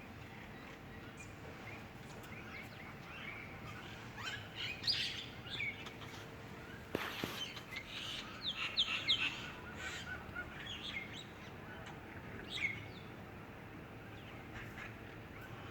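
Several small birds chirping in a tree, short high chirps and quick falling notes, busiest in the middle, over a steady outdoor background hiss. A single sharp knock-like sound cuts through about seven seconds in.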